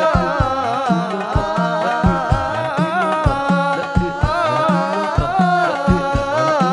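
Sholawat, an Islamic devotional song praising the Prophet, sung with drum accompaniment: a singing voice holding long, ornamented phrases that glide up and down in pitch over steady low drum beats, about two a second.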